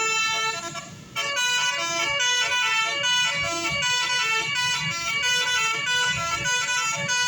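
Bus telolet horn of the basuri type playing a tune. One held note, a short break about a second in, then a quick run of stepping notes.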